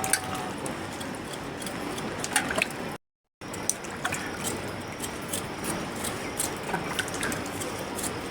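Steady rush of water, with scattered light clicks and knocks over it.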